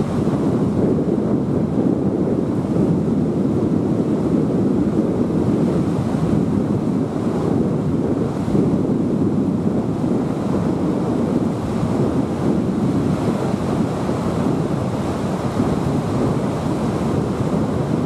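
Steady rush of white water tumbling through shallow river rapids.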